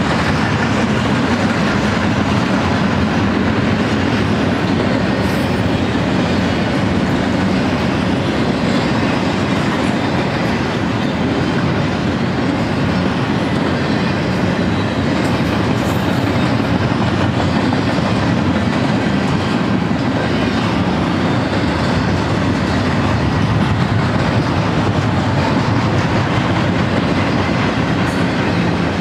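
Double-stack intermodal train of container well cars rolling past: a steady, unbroken rumble and rattle of steel wheels on rail.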